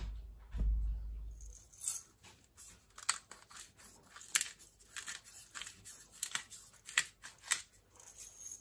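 Salt and pepper being applied to the second side of a raw steak. A dull knock in the first second or so, then irregular crackling clicks for several seconds.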